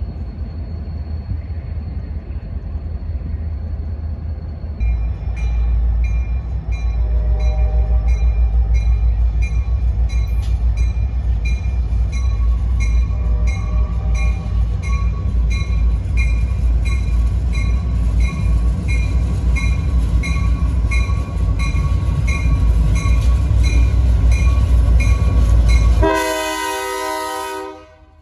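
Blue Ridge Southern diesel locomotives approaching and passing close by, their engines rumbling heavily, louder from about five seconds in. The locomotive bell rings steadily, about twice a second, and the horn sounds, strongest near the end.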